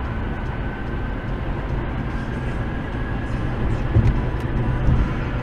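Car cabin noise from a car driving on a highway, picked up by its dashcam: a steady rumble of tyres and engine, with two light bumps about four and five seconds in.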